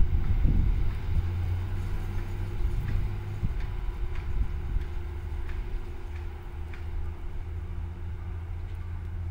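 Seibu 2000-series electric train pulling away into the distance, its rumble on the rails fading over the first second or so. A steady low rumble remains after it.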